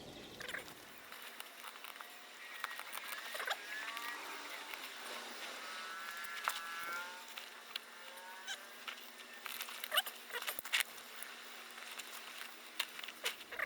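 A creaky old pair of scissors squeaking at the pivot as they cut through carpet, with several squeaks and sharp clicks of the blades, the loudest clicks about ten seconds in.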